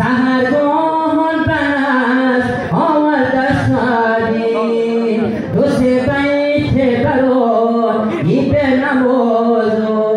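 A solo male voice chanting a mawlid song into a microphone, heard through a PA loudspeaker in a large hall. Long held notes slide and ornament, with short breaks for breath between phrases.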